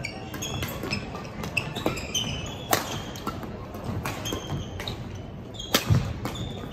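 Badminton rally on an indoor court: shoes squeak short and high on the court floor among sharp racket strikes on the shuttlecock. The loudest strikes come about three seconds in and again near the end.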